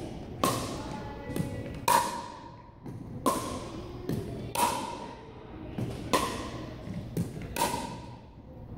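Pickleball rally on a hardwood gym floor: six sharp paddle-on-ball hits about a second and a half apart, each a short ringing pock. A lighter tap falls between each pair as the plastic ball bounces on the floor, all echoing in the large hall.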